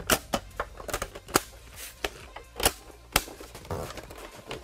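Plastic trim parts of a Bang & Olufsen Overture stereo being handled and fitted into the housing: a string of sharp, irregular clicks and knocks, about half a dozen.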